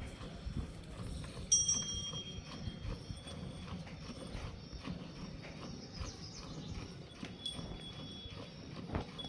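Gir cattle moving about, their hooves giving irregular knocks and shuffles on hard ground.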